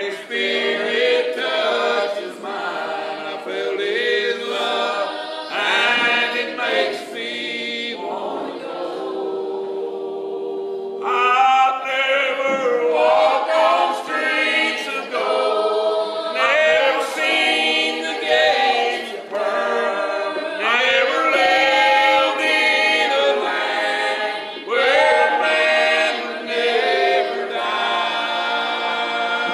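A group of voices singing a song together in harmony, choir-style, without instruments.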